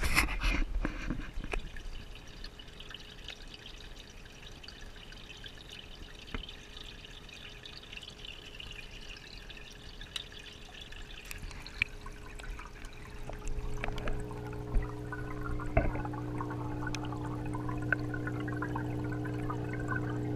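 Aquarium water trickling and splashing at the open tank's surface, with a few sharp knocks at the start and scattered clicks. About twelve seconds in, a steady low hum joins the water sound and holds to the end.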